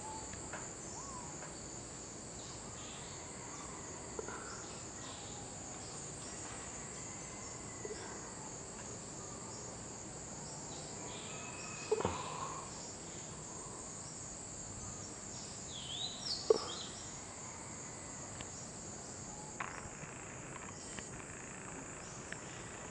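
A steady high-pitched chorus of insects buzzing in tropical forest, with a few brief clicks or calls breaking in, the loudest about two-thirds of the way through.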